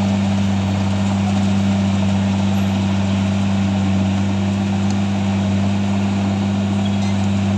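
Diesel engine of a heavy earthmoving machine running at a steady speed, with an even low hum.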